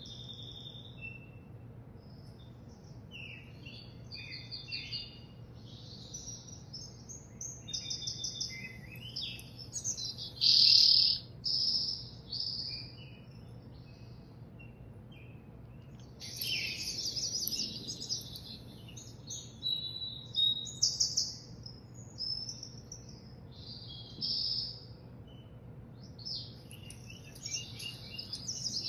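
Songbird singing from a bird video played through a television's speakers: short bursts of varied chirps and trilled phrases with pauses between them, the loudest phrase about ten seconds in.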